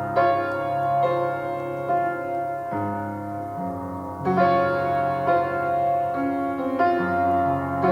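Slow, gentle piano music, a new note or chord about once a second, each left to ring.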